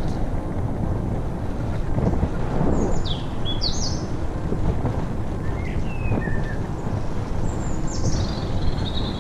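Wind rumbling on the microphone and a bicycle rolling and rattling over a dirt woodland track, with birds calling over the top about three seconds in, again around six seconds, and near the end.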